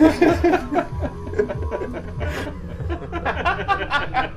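Background music with a steady bass beat, with a man snickering and chuckling over it, his laughter quickening near the end.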